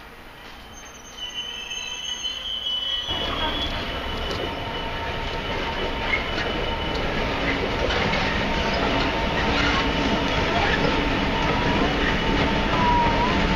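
Freight wagons' wheels squealing as a coal hopper train rolls past. Then an EWS Class 66 diesel locomotive and its hopper wagons pass with a dense rumble of engine and wheels and more scattered squeals, getting steadily louder.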